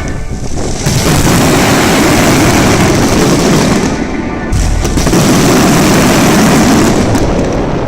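Starmine fireworks in a dense finale barrage: the bursts run together into one continuous, loud crackling rumble, easing briefly about four and a half seconds in and tapering near the end.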